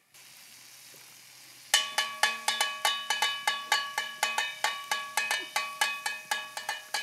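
A metal bowl struck rapidly over and over like a dinner gong, about four ringing clangs a second starting about two seconds in. Beneath it, a steady hiss of food sizzling in a pot on the campfire.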